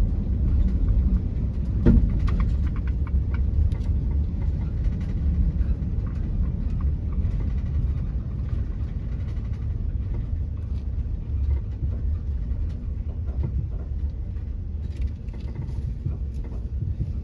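Car driving, heard from inside the cabin: a steady low rumble of engine and road noise that eases off gradually as the car slows on arrival. There is a single knock about two seconds in.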